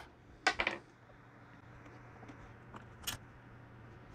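Small metallic clicks and rattles of a hand tool working the power valve cover screws off a two-stroke Yamaha YZ250 cylinder: a louder cluster about half a second in, then a few light ticks.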